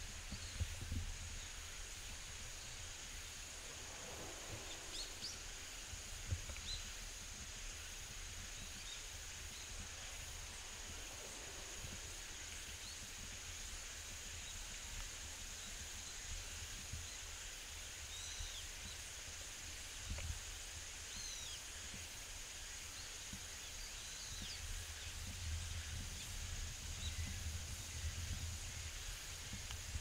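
Quiet outdoor ambience: a steady high-pitched drone, a few faint short bird chirps scattered through it, and a low rumble underneath.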